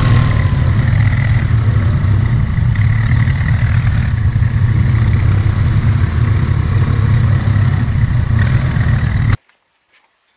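ATV engine running steadily, then cutting off abruptly about nine seconds in.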